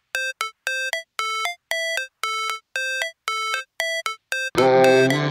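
Music: a synth melody of short, bright beeping notes, about three a second, stepping between a few pitches with gaps between them. About four and a half seconds in, a much louder full arrangement with bass comes in.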